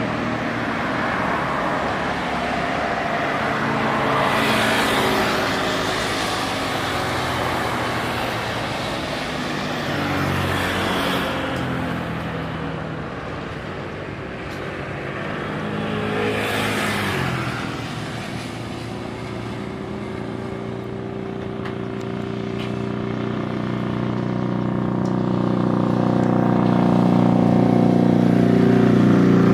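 Road traffic passing: vehicles go by in three swells about six seconds apart, the last falling in pitch as it passes. Over this runs a steady engine hum that builds towards the end.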